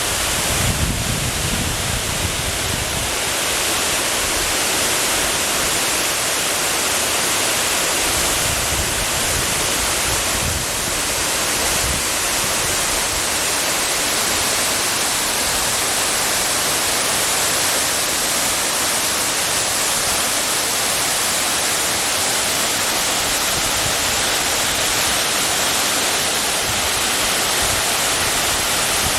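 Steady, loud rush of Mallalli Falls, a large waterfall. Low rumbling bumps come in the first few seconds and again around eight to eleven seconds in.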